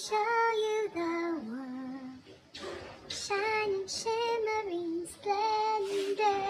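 A woman singing unaccompanied in a high voice, holding long notes that step down in pitch, with short breathy breaks between phrases.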